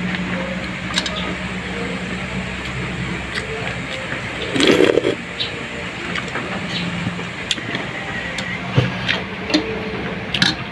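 Close-up eating sounds of people eating by hand: chewing and lip smacking with scattered small clicks, over a steady low hum. A louder short noise comes about halfway.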